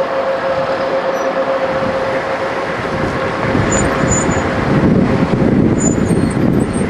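Military vehicles running on a road, a dense engine and tyre rumble. A steady hum with a faint whine gives way about halfway through to a heavier, louder rumble as an eight-wheeled armoured vehicle and a Humvee drive past, with a few short high chirps.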